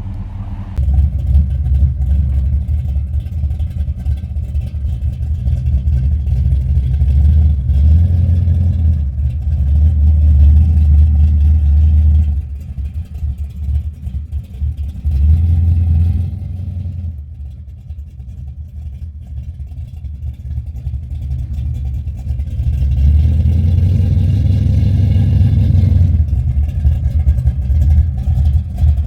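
High-powered car engine running with a deep rumble, its loudness swelling and easing as the throttle is worked. It settles down for several seconds past the middle, then comes back up near the end.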